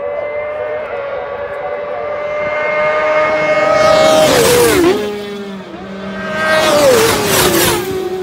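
Road-racing motorcycles held flat out along the straight, engine note steady and growing louder. They then shut the throttle and downshift for the corner, the pitch dropping in steps with exhaust snaps and pops. A second bike follows a couple of seconds later and does the same.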